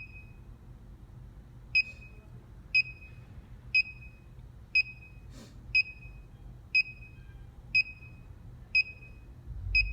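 Short, high electronic beeps from a wireless alarm control panel, one a second, about ten in all, with a faint click about halfway through.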